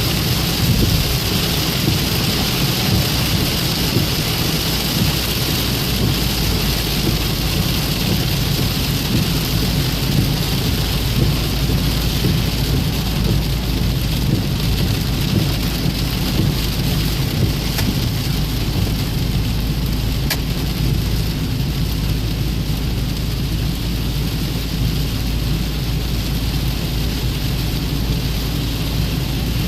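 Rain falling steadily, an even hiss with a constant low rumble underneath.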